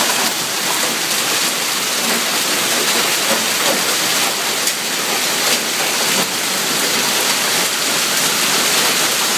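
Hailstorm: hail and heavy rain falling steadily, a dense even hiss of countless small impacts on the lawn, pavement and parked cars.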